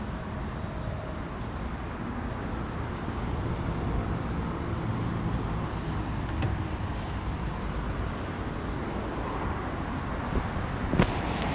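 A motor vehicle running: a steady low rumble under a noisy wash, with one sharp click near the end.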